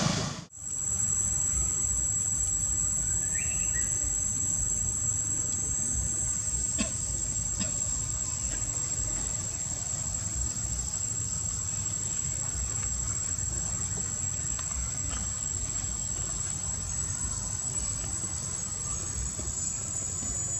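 Steady, high-pitched drone of insects, cricket or cicada-like, running without a break over a low rumble. The sound drops out briefly at a cut about half a second in.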